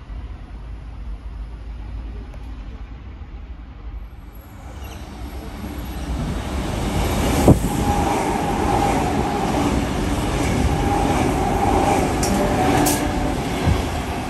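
A double-deck electric suburban train comes into the station and runs along the platform. Its noise builds from about four seconds in and stays loud, with a sharp click about halfway through and a steady whine over the wheel-on-rail noise.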